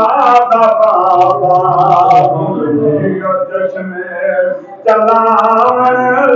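A man singing an unaccompanied devotional naat into a microphone in long, held melodic phrases. He breaks off briefly about four and a half seconds in, then resumes.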